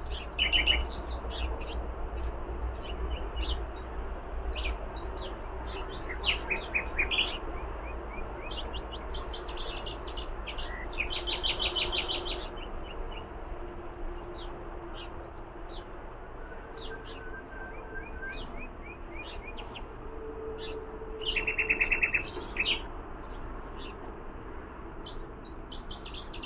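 Several small birds chirping and calling, with short quick trills now and then standing out above a steady background hiss. A low rumble runs under the first few seconds.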